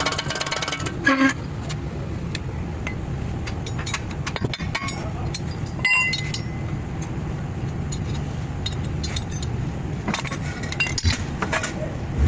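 Car running with a steady low rumble and a few scattered sharp clicks and clinks, about a second in, around six seconds and several near the end: the noise of a suspected faulty CV drive axle.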